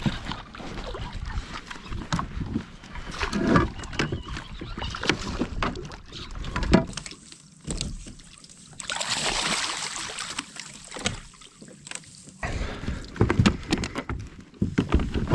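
Knocks, clicks and rattles of fishing gear being handled on a plastic fishing kayak, with a short burst of hiss about two-thirds of the way through, then heavier splashing and knocking near the end as a hooked bass is brought to the landing net beside the boat.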